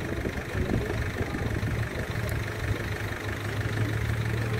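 A vehicle engine idling steadily, a low hum that grows a little stronger near the end.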